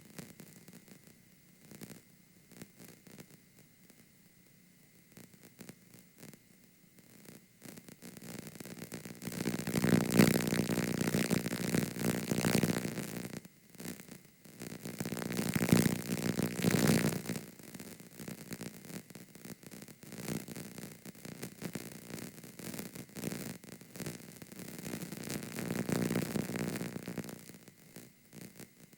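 Damaged-VHS-tape sound effect: static hiss and crackle broken by frequent dropouts and clicks. It stays faint for the first several seconds with a thin steady whine, then swells in loud, uneven waves of static.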